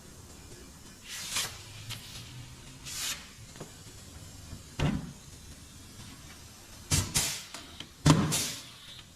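Several separate knocks and clunks with short swishing sounds between them, the loudest clunk about eight seconds in.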